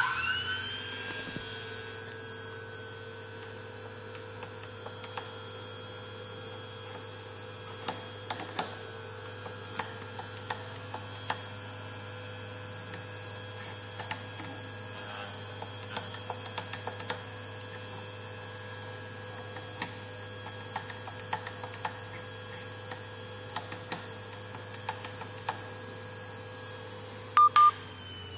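YN-03E end mill and corner radius grinder's motor switching on and spinning up, then running steadily with a high whine during a corner-radius sharpening pass, with scattered light ticks. Two sharp short sounds come near the end, and the motor starts to wind down.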